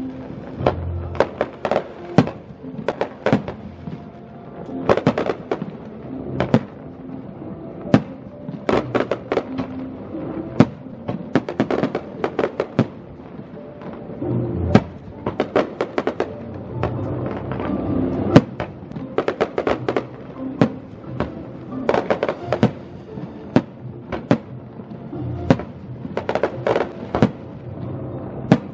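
Aerial fireworks shells bursting in rapid, irregular succession, sometimes several bangs a second, with music playing along with the show.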